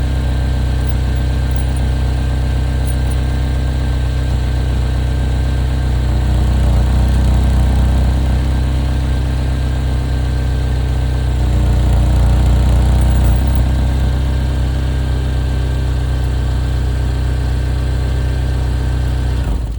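Chevrolet Equinox engine idling with an exhaust leak. It grows louder twice for a few seconds and cuts off abruptly at the very end.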